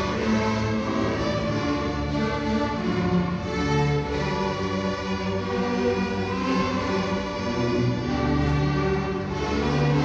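Large middle school string orchestra of violins, violas, cellos and double basses playing together, with held notes and a steady low bass line throughout.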